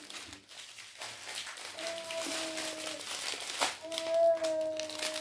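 Plastic bags of diamond-painting drills crinkling as they are handled. Twice, a long held tone of about a second sounds over it, the second one louder.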